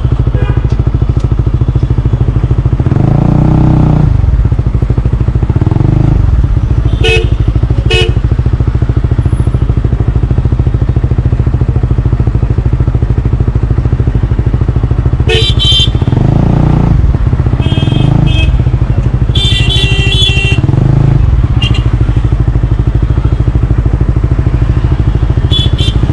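Single-cylinder four-stroke engine of a Honda CBR125R/150R breathing through a Yoshimura R77 full exhaust system, idling steadily and blipped to higher revs about six times in short bursts. A few sharp clicks come between the blips.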